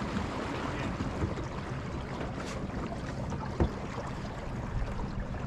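Boat's outboard motor running steadily under way, with water rushing along the hull. A single knock sounds about three and a half seconds in.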